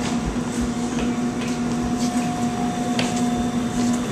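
Large wheeled equipment trunks rolling and rumbling over a concrete floor, with a few faint knocks, over a steady mechanical hum.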